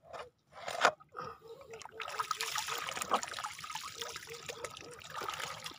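Shallow seawater in a rocky tide pool splashing and trickling as hands and a net work in it: one sharp splash about a second in, then steady splashing and dribbling from about two seconds on.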